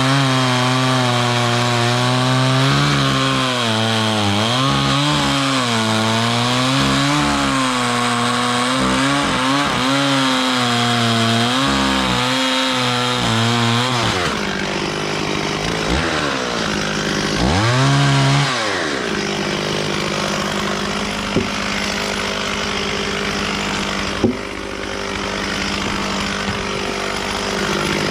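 Stihl 440 two-stroke chainsaw cutting wood at high revs, its pitch wavering as the chain bites. About halfway through it drops off and revs up once briefly, then settles to a steady idle, with two sharp knocks near the end.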